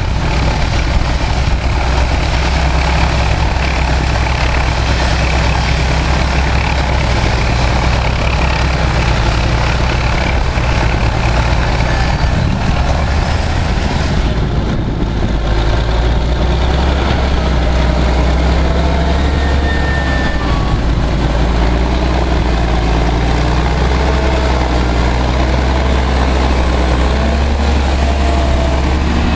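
Heavy Caterpillar diesel earthmoving engines from a 630B scraper and D7E bulldozer, running steadily with a deep, even drone.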